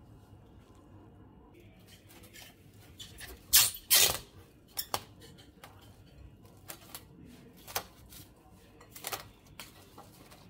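Plastic cling film being pulled from its roll and stretched over a glass bowl: two loud crackly bursts about three and a half seconds in, then lighter crinkles and clicks as the film is pressed onto the rim.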